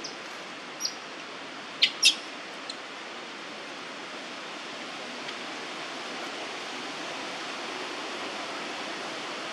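Steady outdoor background hiss with a handful of short, high-pitched chirps or squeaks from a small animal in the first three seconds, the two loudest close together about two seconds in.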